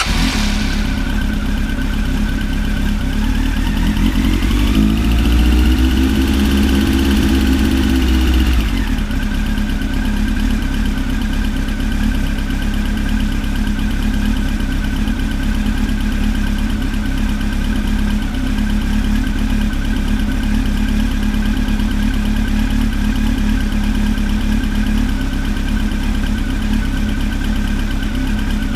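Honda CB1300 motorcycle's inline-four engine running just after start-up: its speed rises over a few seconds, holds, then drops back about nine seconds in to a steady idle. The engine has a ticking noise.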